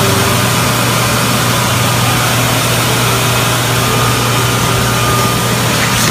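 Water extraction vacuum running steadily: a constant low motor hum under a broad rushing noise.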